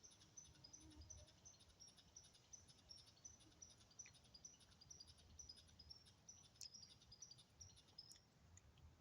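Faint, rapid high-pitched chirping from small wild creatures, several short chirps a second in an uneven run, that stops about eight seconds in.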